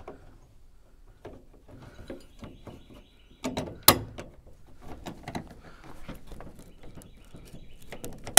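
Metal clicks and knocks of a bolt and nut being worked into a galvanized bracket on a jon boat, with one louder knock about halfway through and a run of quick clicks after it.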